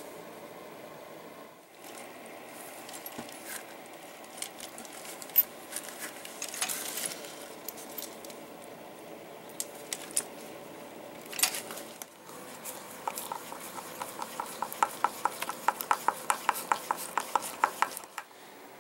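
Hand leatherworking on a leather tool pouch: scattered small clicks, taps and scrapes from awl and needle work, then a quick, even run of light ticks over the last few seconds.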